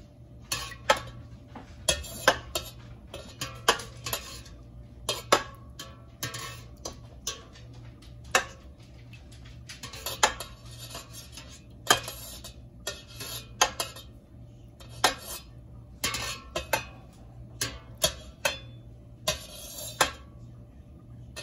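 Stainless steel slotted spoon clinking against the sides and bottom of a stainless steel stock pot as it stirs milk in up-and-down strokes, with irregular clinks about once a second. A steady low hum runs underneath.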